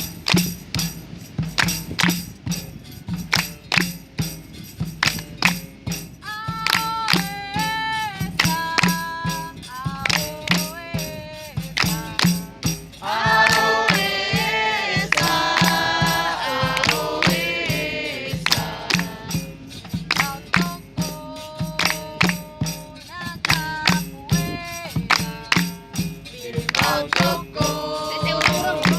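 Capoeira roda music: steady rhythmic hand-clapping (palmas) with percussion throughout. A single voice sings, and a group chorus answers for a few seconds around the middle.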